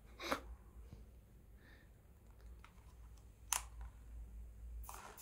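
Hand-held trigger spray bottle spritzing water onto a bathing cockatiel: two short, sharp squirts about three seconds apart. Near the end a rapid pattering starts.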